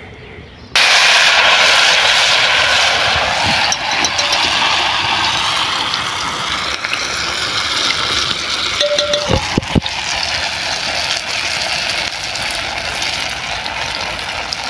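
Batter frying in hot oil in a wide aluminium kadai: a loud sizzle that sets in suddenly about a second in and carries on steadily.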